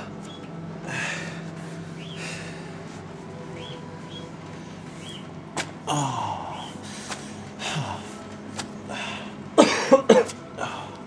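A man breathing hard between wax-strip pulls, then a short burst of coughs about ten seconds in.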